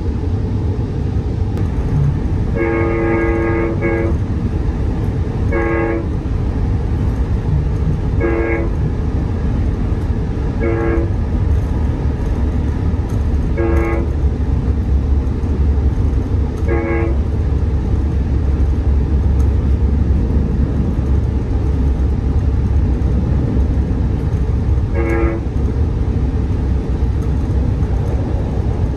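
Commuter train's horn sounding a series of blasts over the steady low rumble of the moving train: one long blast, then short toots every few seconds, eight in all.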